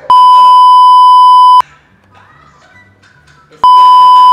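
Loud, steady, high-pitched electronic censor bleep, about a second and a half long, then a second bleep starting near the end and running on. Faint speech is heard in the gap between them.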